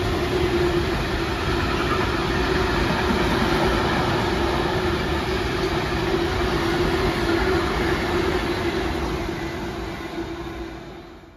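Freight train of open box wagons running through at speed: a steady rumble and clatter of wheels on rails with a steady hum running through it. The sound dies away in the last couple of seconds as the end of the train passes.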